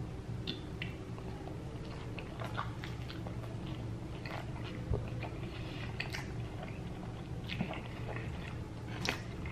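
A person chewing and biting into tacos close to the microphone, with many small, irregular mouth clicks. A low steady hum runs underneath.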